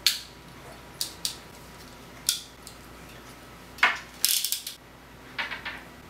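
Hand crimping tool crimping insulated spade terminals onto stranded cord wires: a series of sharp metallic clicks and snaps, with a quick run of several clicks about four seconds in.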